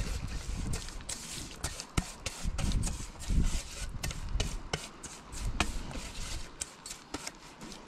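A basting brush stirring and scraping a coconut-oil seasoning mix around a stainless steel bowl, giving many quick, irregular clicks and scrapes of the bristles and handle against the metal.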